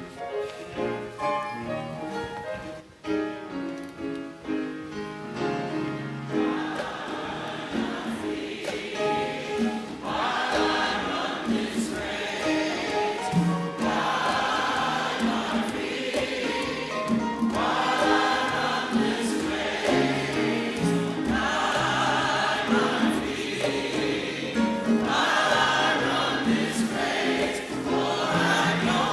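A choir singing with instrumental accompaniment. The instrument plays alone at first, and the voices come in about six seconds in, singing in phrases of a few seconds each.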